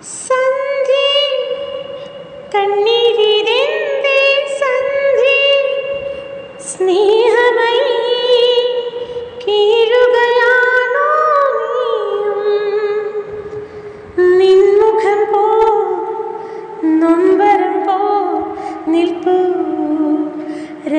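A woman singing a slow melody in long held notes with gliding ornaments, phrase after phrase, each a few seconds long.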